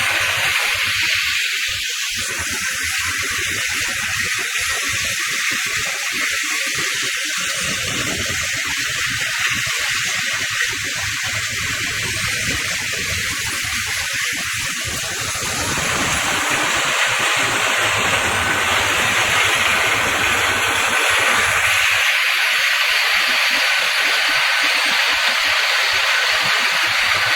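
Wood chipper running, a steady rushing hiss that gets louder and brighter about halfway through.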